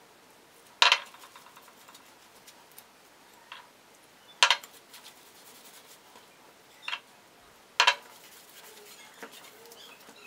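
Pizza dough being mixed by hand in a stainless steel bowl: a few sharp metallic clanks with short ringing as the bowl is knocked, spaced a few seconds apart.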